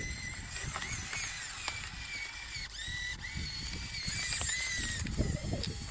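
Electric drive motors and gearboxes of a converted Bruder Cat D5 RC dozer whining, the pitch rising and falling as the speed changes.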